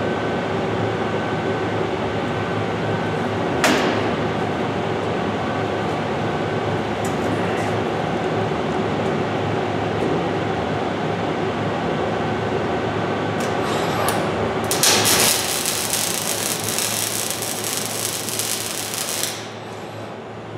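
Steady hum of the robot welding cell with a click a few seconds in, then the FANUC robot's MIG (gas metal arc) torch strikes an arc about two-thirds of the way in and welds a short stringer bead for about four seconds with a dense crackling hiss before cutting off. The weld runs on a schedule meant for thinner metal, not hot enough for the half-inch steel plate.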